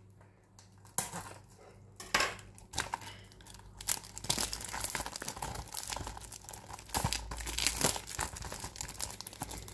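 Plastic packaging of a Blu-ray set crinkling and rustling with small clicks and knocks as it is handled and opened, starting about a second in and getting busier from about four seconds in.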